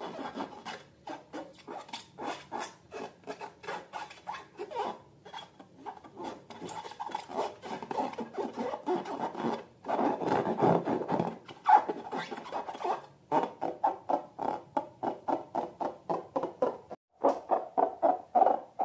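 Rubber balloons being rubbed and squeezed by hand: a rapid run of short rubbing and squeaking strokes, several a second, getting denser and louder about halfway through.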